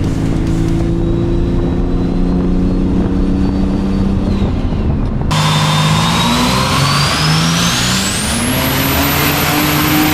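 Turbocharged Ecotec V6 running hard on a chassis dyno. The sound changes abruptly about five seconds in, then a high whine climbs steeply for a couple of seconds and holds as the engine pulls.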